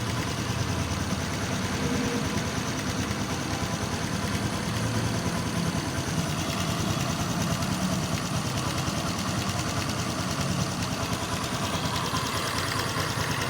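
Honda XRM 125 Fi single-cylinder four-stroke engine idling steadily with a rapid knocking from the left side of the engine, which the owner suspects could be the cam chain tensioner.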